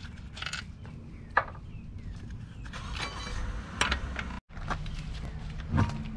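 Lug nuts being spun off a car's front wheel and the wheel taken off, with scattered metallic clinks and a few sharp knocks.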